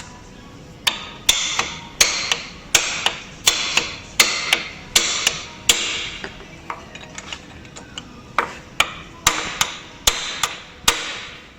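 A Teflon mallet tapping an Allen key to tighten the universal joint bolts on a sprint car's driveline: about twenty sharp taps, two or three a second, each with a short metallic ring, fainter for a couple of seconds in the middle.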